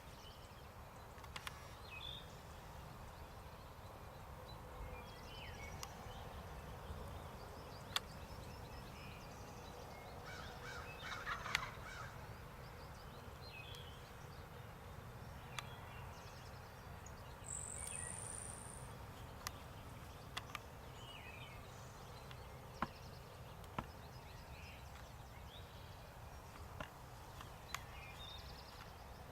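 Wild turkeys calling softly: scattered short clucks and calls, a cluster of them about halfway through, over a steady low outdoor hum, with a few sharp clicks.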